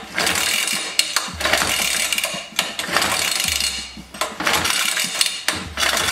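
Recoil starter rope on a small Suffolk Super Colt engine pulled sharply several times in a row, about once a second, each pull a rasping whirr as the engine turns over. It never catches or runs.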